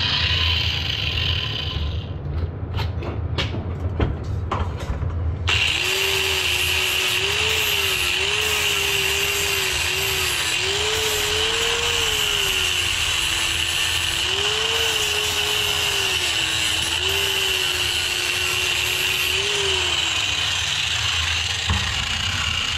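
Angle grinder grinding down a weld bead on a steel chainsaw muffler, its whine dipping and rising as the disc is pressed into the metal. A few knocks come first, before the grinding settles in, and near the end the pitch slides down as the grinder winds down.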